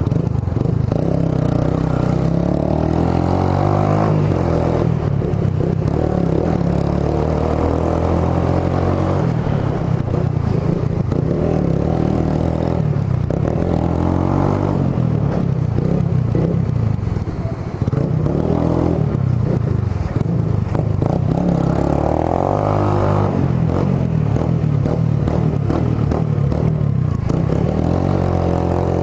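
Suzuki GSR 150's single-cylinder engine running through a Roncar SS oval aftermarket exhaust while riding, its pitch rising and falling again and again as the throttle opens and closes through the gears, with a brief dip in level about two-thirds of the way through.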